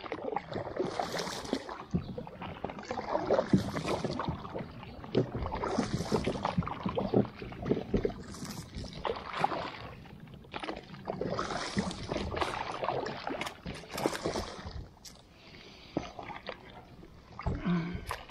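Kayak paddle strokes splashing about every two seconds, with many small knocks and clicks around the boat.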